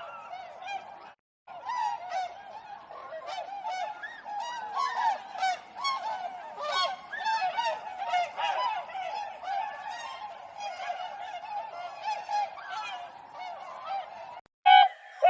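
A flock of swans calling: many short, overlapping nasal honks in a dense, continuous chorus. The calling cuts off briefly about a second in, then resumes.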